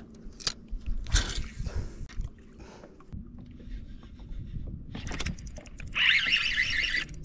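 Spinning rod and reel being cast and reeled in: a swish of the cast about a second in, then handling clicks and reeling. About six seconds in comes a loud, shrill, wavering sound lasting about a second.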